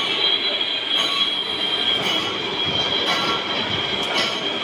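Tool-post grinding wheel on a lathe grinding the steel flights of a plastic injection-moulding machine screw, a steady high-pitched screech of abrasive on metal over a grinding hiss.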